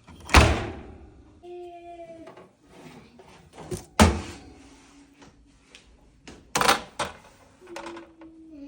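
Kitchen cabinet doors or drawers banging shut three times, a few seconds apart, each a loud sharp knock.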